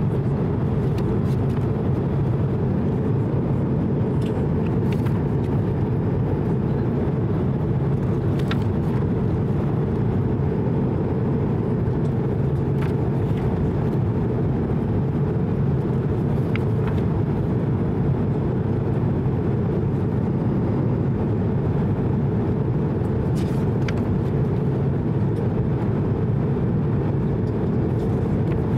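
Steady cabin noise of an Airbus A220-100 in flight, a deep even rumble of airflow and engine, with a few faint clicks.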